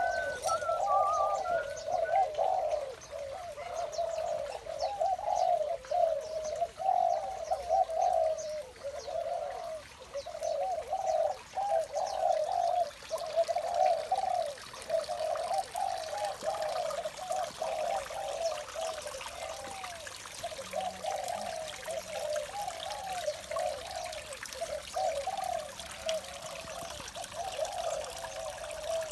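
Spotted doves cooing continuously, their repeated coo phrases overlapping with no pause, with a brief higher chirp from a small bird near the start.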